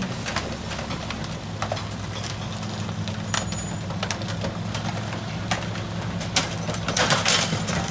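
Mack LE rear-loader garbage truck's engine idling steadily, with scattered clicks and knocks over it and a burst of louder clatter near the end.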